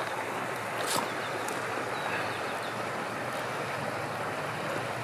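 Creek water rushing steadily, with a sharp click about a second in.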